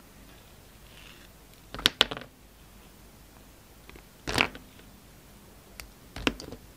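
Utility knife blade slicing through a bar of soap: three short cuts, about two seconds in, about four and a half seconds in, and near the end.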